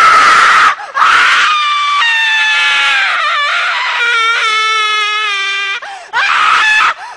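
Jump-scare screamer sound: a very loud, shrill scream that cuts in suddenly. It goes on as long shrieking wails with a few short breaks, its pitch sliding slowly down through the middle.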